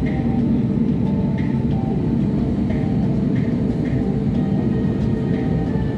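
Steady low cabin rumble of an airliner taxiing on the ground, with engine noise and the rolling of the aircraft.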